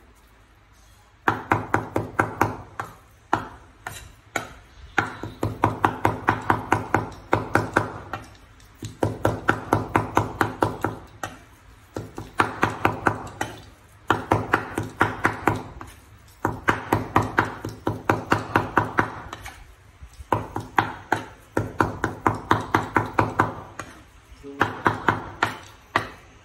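A broad cleaver chopping on a wooden chopping board, mincing raw fish into paste for fish cakes. The strokes come fast, about five a second, in runs of a few seconds with short pauses between.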